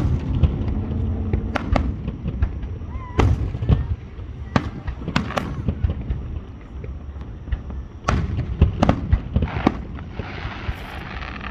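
Aerial fireworks bursting: a dozen or so sharp bangs at irregular intervals over a continuous deep rumble, with a hissing stretch near the end.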